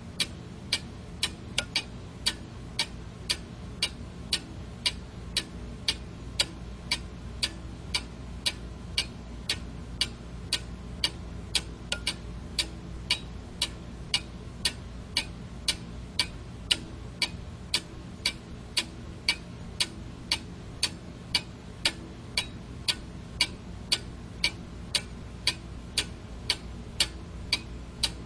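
Quartz alarm clock ticking evenly, sharp clicks at about two a second over a steady low hum.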